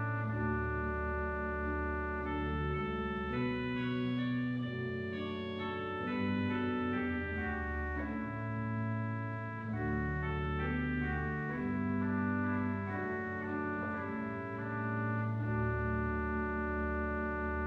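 Pipe organ playing a slow passage on its swell 8' oboe (a reed stop) and great 8' dulciana (a soft flue stop): held chords over a low bass line, the notes changing every second or two.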